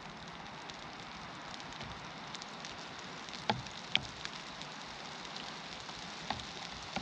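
Rain falling steadily, an even hiss, with a few heavy drops striking close by as sharp taps, three of them in the second half.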